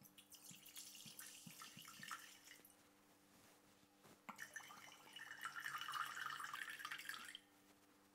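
White wine and white vinegar poured from glass bottles into an empty stainless steel pot, in two pours: a splashing stream for about two and a half seconds, then after a short pause a louder, longer pour with fizzing from the wine foaming, cutting off near the end.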